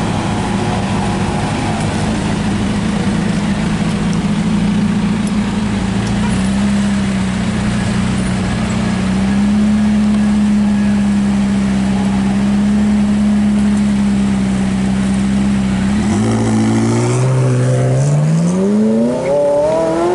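McLaren 570S's twin-turbo V8 idling steadily, then, about four seconds before the end, pulling away, its engine note climbing as it accelerates.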